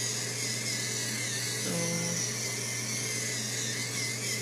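Small battery-powered facial cleansing brush running against the face, a steady motor hum.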